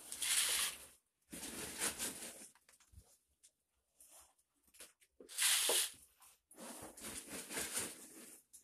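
Hot oil sizzling in a large commercial deep fryer as snacks fry, coming in four bursts of a second or so with short quiet gaps between them.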